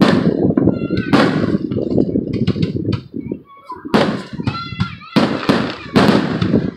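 Aerial fireworks going off in a rapid series of booms, each with a long rolling rumble after it, easing off briefly about three seconds in before more bursts follow.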